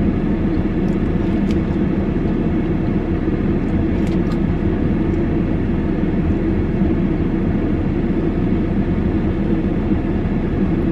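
Steady low rumble of a car running while parked, heard from inside the cabin. A few faint clicks from a plastic spoon in a plastic cup come through about a second in and again around four seconds.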